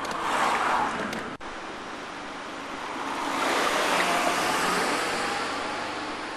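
A car driving past on the road: a rush of tyre and engine noise that swells to a peak about four seconds in, then fades. A shorter swell at the start breaks off abruptly after about a second.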